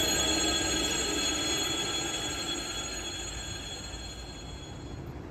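ER2K electric multiple unit pulling away, its running rumble with steady high-pitched whine tones fading out as it recedes.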